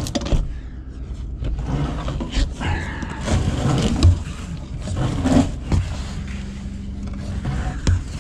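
Rustling and scraping with scattered knocks as a person crawls through a cramped attic over loose-fill insulation and wooden trusses.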